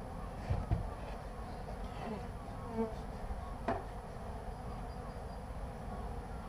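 Honeybees buzzing steadily in a dense crowd around a beehive being worked. A couple of low bumps come within the first second and a sharper knock just past halfway.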